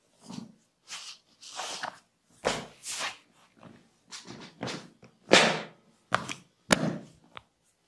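Massage by a barber's hands: a run of short rubbing and slapping strokes on skin and hair, with a few sharper slaps in the second half.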